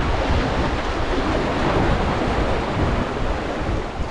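Sea waves washing and splashing against the concrete tetrapod blocks of a breakwater, with wind noise buffeting the microphone.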